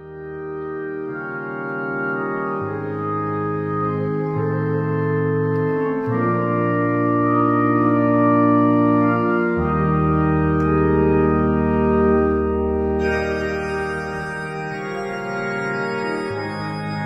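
Slow background organ music: held, sustained chords that change every second or two, fading in at the start, with brighter high notes joining about two-thirds of the way through.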